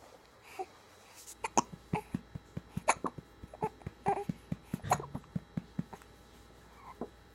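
A baby hiccuping over and over: a string of short, sharp hics, some with a small voiced squeak, which thin out near the end.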